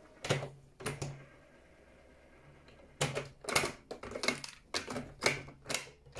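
Mechanical keys and cassette deck of a Unitra Kasprzak RM 222 radio-cassette recorder clicking and clunking as they are pressed by hand. Two clicks come in the first second, then a quick run of about seven clicks and clunks in the last three seconds.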